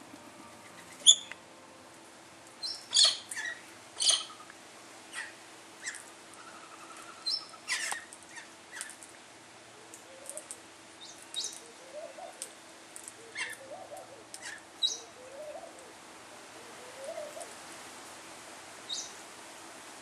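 Galahs calling: short, sharp, high chirps and squeaks scattered irregularly, the loudest about a second in, with a run of soft, low chattering notes in the middle.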